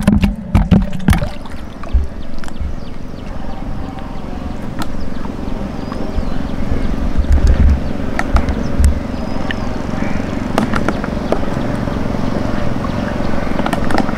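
Water sloshing and gurgling around a person wading and diving in shallow backwater, with low rumbling and a few sharp splashes and ticks, the busiest of them in the first second.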